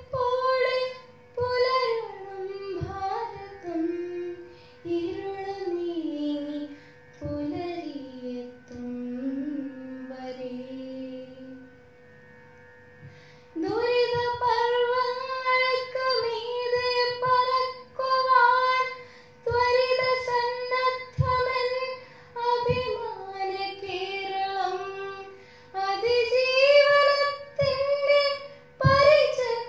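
A girl's voice singing a Malayalam poem in the melodic kavitha parayanam style of sung recitation, with gliding, held notes. The melody falls and settles low, breaks off briefly about twelve seconds in, then resumes in higher phrases, with a faint steady tone underneath.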